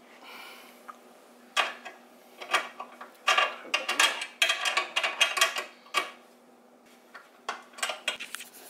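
Metallic clanks, clicks and rattles of a band saw's tilting table and its lock being handled while the table is set square to the blade, a quick irregular run of ringing knocks from about a second and a half in until near the end.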